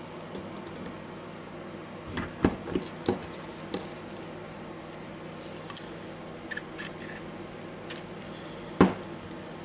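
Pliers working inside a small steel sleeve from a DeWalt DCH273 rotary hammer: a scatter of short, sharp metallic clicks and clinks, the loudest near the end.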